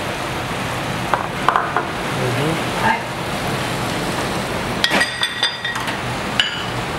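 Pork belly sizzling steadily on a tabletop barbecue griddle. Plates and bowls clink as they are set down on the table, a few times early on and in a cluster past halfway.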